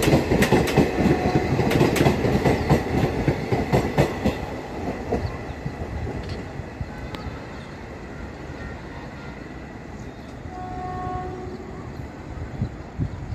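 Garib Rath express coaches clattering over the rail joints as they pass close by, loud at first, then fading as the last coach goes by about five seconds in and the train draws away. A distant train horn sounds briefly about ten seconds in.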